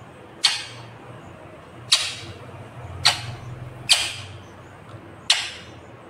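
Indian ringneck parakeet giving five short, sharp screeches, spaced a second or so apart.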